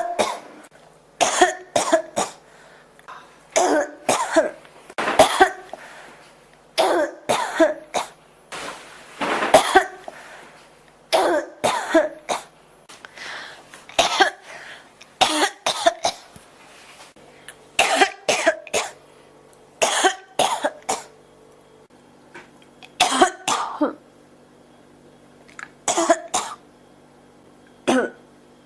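A person coughing over and over in fits, with clusters of two or three sudden coughs every second or two and longer pauses between fits in the later part.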